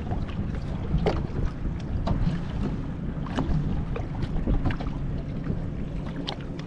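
A boat's motor running steadily with a low hum, wind on the microphone, and scattered short knocks against the boat.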